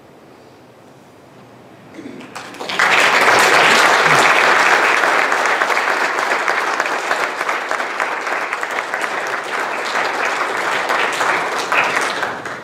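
Congregation applauding, starting about three seconds in and stopping near the end.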